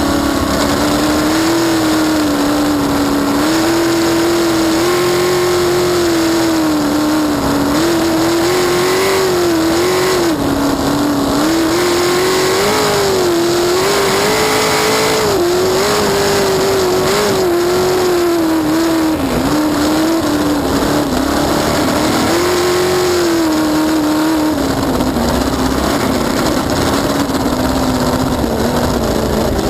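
A crackerbox race boat's inboard V8 running hard at racing speed, heard from on board. Its pitch rises and falls repeatedly as the throttle and load change, and it eases lower near the end. A steady rush of wind and water runs beneath it.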